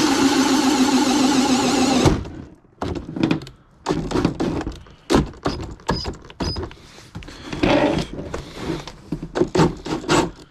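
Drill spinning a 2 3/4-inch hole saw through a plastic door panel, running steadily and stopping about two seconds in as it breaks through. It is followed by a string of irregular knocks and scrapes as the panel and saw are handled.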